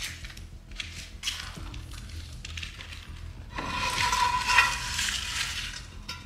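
Rubbish and debris crunching, a few separate crunches at first, then a louder rough scraping rustle lasting about two seconds a little past halfway.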